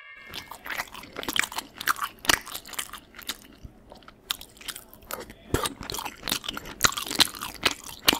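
Close-up chewing of crunchy food: a run of loud, irregular crunches and bites.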